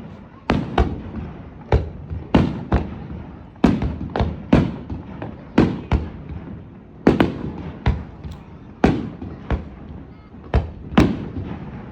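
Fireworks display: aerial shells bursting in quick, irregular succession, more than a dozen sharp bangs, some two or three close together, each trailing off in a rolling echo.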